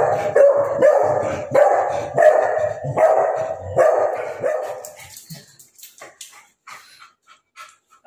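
A small dog barking rapidly and repeatedly, about two barks a second, at a monkey outside a metal grille gate; the barking stops about five seconds in, leaving only faint clicks.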